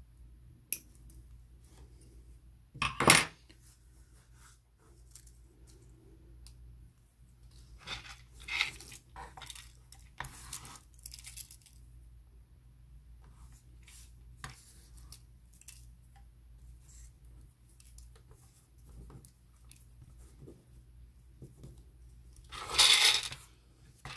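Hobby nippers snipping a thin plastic kit part and small plastic pieces clicking and clattering on a hard surface. There is a sharp clack about three seconds in, scattered clicks in the middle, and a longer rattle near the end.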